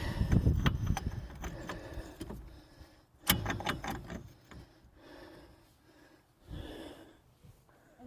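Scattered metal clicks and clinks of a hand tool being worked on a freshly loosened fastener at a car's front wheel hub, with one sharp knock about three seconds in.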